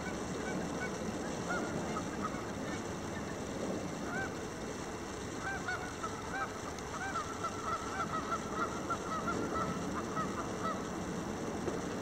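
Geese honking: scattered single honks at first, then a quick run of overlapping honks through the middle that stops shortly before the end, over steady low background noise.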